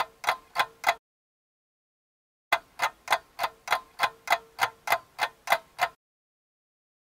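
Rapid mechanical ticking, about three sharp ticks a second, in two runs: the first stops about a second in, and the second starts after a pause of about a second and a half and stops near the end.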